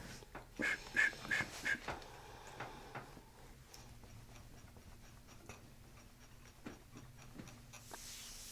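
Faint, scattered light clicks and taps over quiet room tone, with a short run of four soft sounds in the first two seconds.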